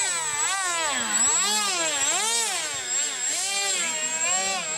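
RC model Su-37 jet's motor whining in flight, its pitch swooping up and down several times as the model manoeuvres and passes by.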